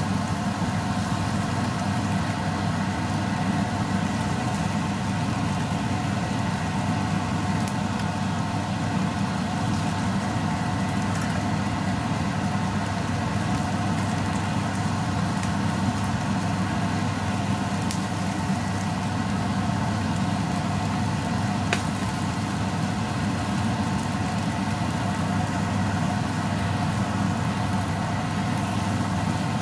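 A steady mechanical hum with several held tones, unchanging throughout, with a few faint clicks.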